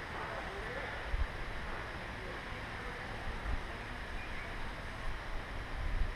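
Steady rushing noise of wind on the microphone, with three low thumps of buffeting or handling spread through it.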